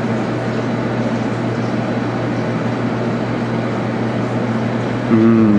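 Steady rumbling noise with a constant low hum. About five seconds in, a short low humming tone at two pitches joins, louder and sliding slightly down.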